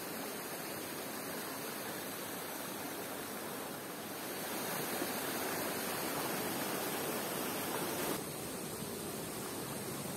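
Steady rush of a mountain stream pouring over small waterfalls among boulders. It grows louder about four seconds in and drops back abruptly about eight seconds in.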